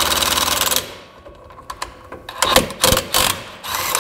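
Cordless brushless impact wrench hammering rapidly on a nut for about a second, drawing a new wheel stud into the axle hub flange through a stack of washers. It is followed by scattered knocks and clanks and another brief burst just before the end.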